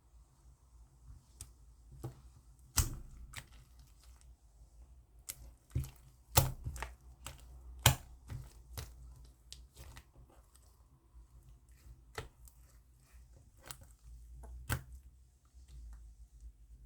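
Slime being squished and pulled by hand, giving irregular sticky clicks and pops, a few of them louder than the rest.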